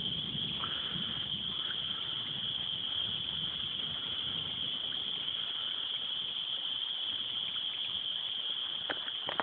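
Steady chorus of crickets, one continuous high-pitched trill, with a couple of light clicks near the end.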